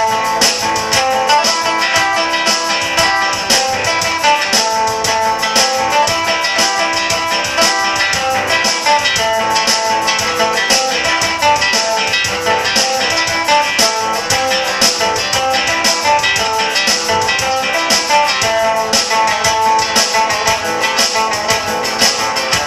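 Music with plucked string instruments, guitar-like, over a steady beat.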